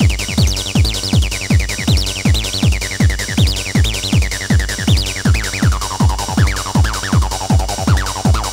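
Early-1990s techno played from a vinyl record. A kick drum hits on every beat, about two a second, under a synth line of fast notes that fall in pitch; the synth figures sink lower after about six seconds.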